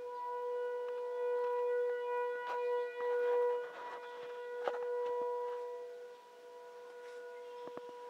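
Outdoor nuclear power plant emergency warning siren sounding a steady tone during its monthly test, holding one pitch. It swells louder over the first few seconds and fades after about six seconds.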